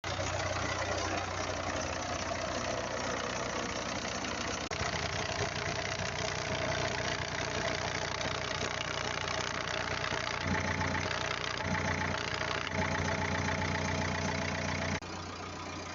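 Renault 1.5 dCi four-cylinder diesel engine idling with the odd extra noise that is the fault being fixed. About ten seconds in, a low hum starts coming and going, and near the end the sound drops suddenly.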